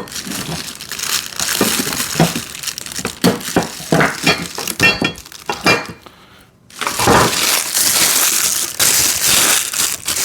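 Plastic packaging wrap crinkling and crackling as it is handled and pulled apart, in dense irregular bursts. It is noisy, breaks off briefly about six seconds in, then comes back louder and more continuous.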